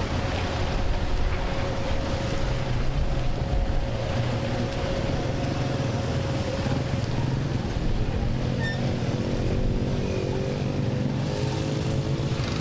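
Steady low rumble with a constant high whine from a jet airliner's engines running, with faint voices in the last few seconds.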